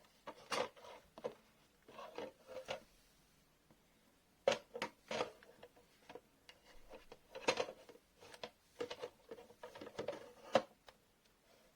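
Irregular clicks and light knocks, a few at a time with pauses between, as of small hard objects being handled.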